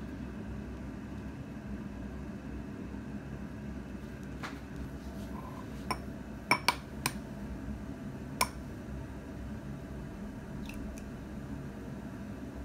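Eggs tapped and cracked on the rim of a glass tumbler: a few sharp clicks and glassy clinks bunched in the middle, two of them ringing briefly. A steady hiss and low hum sit underneath.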